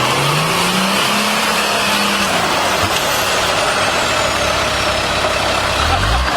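Nissan Patrol 3.3-litre engine revving up, holding for a couple of seconds, then easing off, with a steady rush of noise throughout; it picks up again near the end.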